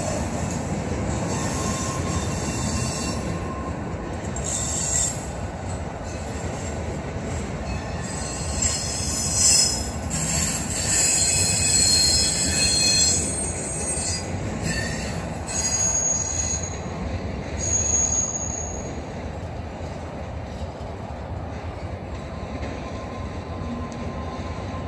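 Norfolk Southern double-stack intermodal freight train rolling past, a steady rumble of wheels on rail with high-pitched squealing that rises to its loudest midway and flares again a few seconds later. The squeal comes from brakes left dragging on the cars, not fully released.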